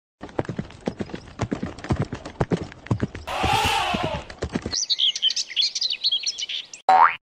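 Cartoon sound effects: quick hoof-like clip-clop footsteps, then a short noisy blast with a tone that rises and falls, then about two seconds of high bird-like chirping, and a quick rising whistle near the end.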